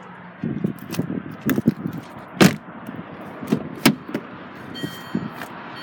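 Handling noise around a car door: a string of clicks, knocks and rubbing, the loudest a sharp click about two and a half seconds in. A few faint short high beeps come near the end.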